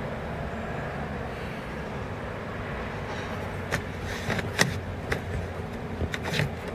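Steady low hum of a car, heard from inside its cabin, with several short, sharp clicks in the second half.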